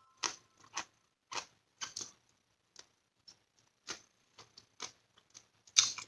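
Close-miked chewing of crunchy adobo string beans: irregular short crisp crunches and mouth clicks, the loudest one near the end.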